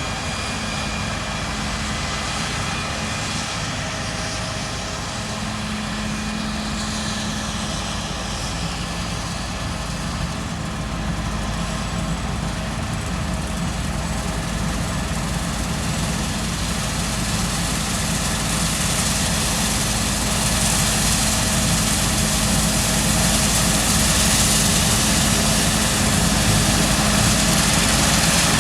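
Claas Lexion 7600 combine harvester running, a steady engine drone with machinery hiss that grows louder over the second half.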